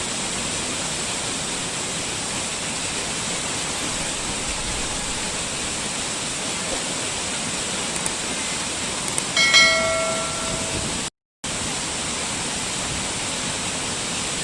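Steady rushing of a waterfall, an even wash of noise. About nine seconds in, a few clicks and a short ringing tone with several pitches sound over it and fade. Soon after, the sound cuts out completely for a fraction of a second, then resumes.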